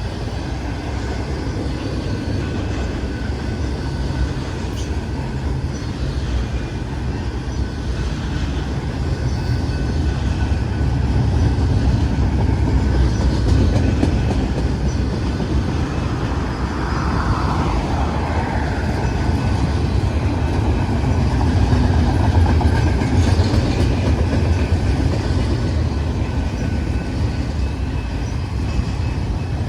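BNSF double-stack container train rolling past, a steady rumble of wheels on rail that swells slightly in the middle.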